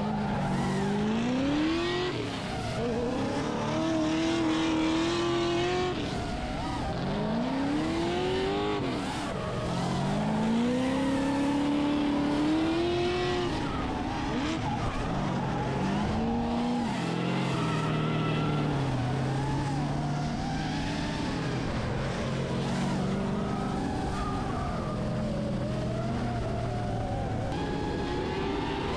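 Drift car's engine revving hard in repeated climbs to high revs, each held near the top before dropping, then running at a steadier lower note in the second half, with the tyres screeching and skidding as the car slides sideways.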